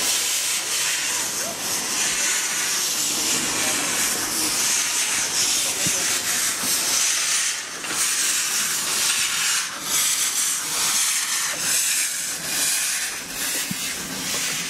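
Miniature steam locomotive venting steam: a loud, continuous hiss that swells and dips slightly.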